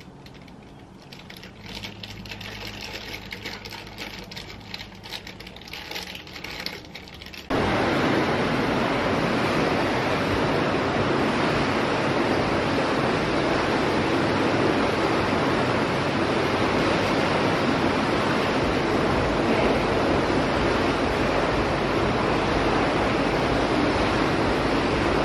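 Faint room tone with light clicks, then a sudden cut about seven seconds in to a loud, steady rush of water in an indoor swimming pool with a swimmer in it.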